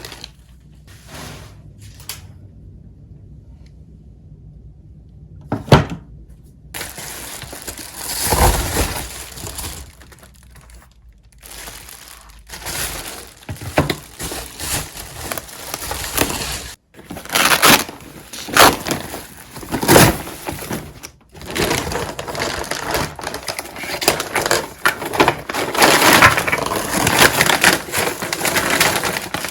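Repeated crunching and cracking with sharp snaps, like crunchy food being bitten and chewed, sparse at first and then dense and continuous from about a quarter of the way in.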